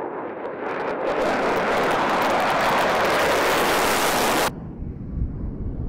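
F-16 fighter jet's single engine at full takeoff power: a loud, rushing jet noise that builds over the first second, holds steady, and cuts off abruptly about four and a half seconds in, leaving a lower, uneven rumble.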